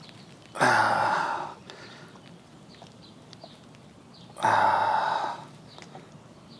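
Two heavy sighing exhales from a man straining to work a hook out of a carp's mouth, each about a second long and about four seconds apart.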